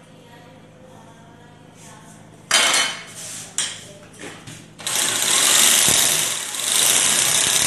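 Makita hammer drill boring into the wall: a short burst about two and a half seconds in, then steady drilling from about five seconds in that stops abruptly at the end.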